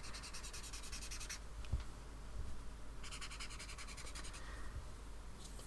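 Alcohol marker nib rubbing across sketchbook paper in rapid short strokes as colour is laid down. It comes in two soft spells with a pause of about a second and a half between them.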